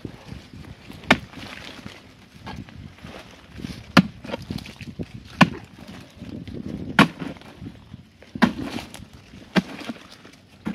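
A digging tool chopping into the hard earth of a termite mound: six sharp strikes, about one every second and a half, with softer scraping between.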